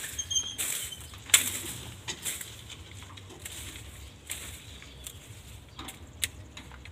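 Irregular knocks and scrapes, the loudest about a second and a half in, with a few short high bird chirps in the first second over a low steady hum.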